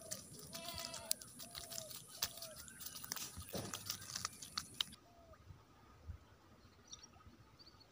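Freshly caught tilapia flopping on grass: a quick run of slaps, knocks and rustles that stops about five seconds in. Then faint quiet background with a few soft high chirps.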